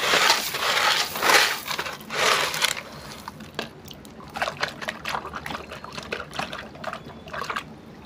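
A hand digging through a toy dump truck's load of wet gravel: stones crunching and scraping for the first few seconds, then scattered clicks of pebbles and water dripping off a pulled-out toy.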